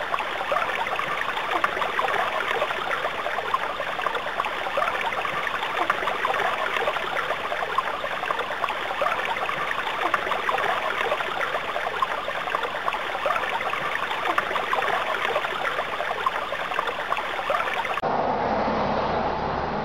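A stream babbling, a steady rush of water. About two seconds before the end it cuts to a different recording with a low steady hum.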